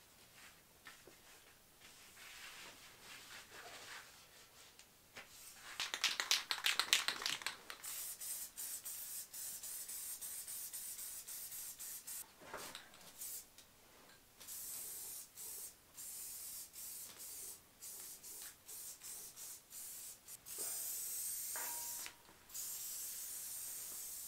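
Aerosol spray paint can: a fast rattle about six seconds in as it is shaken, then hissing in repeated bursts of spray with short pauses between them.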